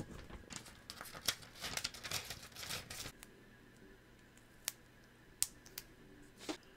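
A sheet of lined paper rustling and crinkling as it is handled close to the microphone, a quick run of small snips and crackles for about three seconds. After that, a few separate sharp clicks.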